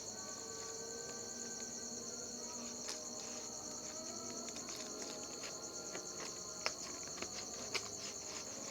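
Insects, crickets by their sound, chirring steadily and shrilly in the background, with scattered clicks and crackles of a parcel's packaging being handled, two sharper snaps near the end.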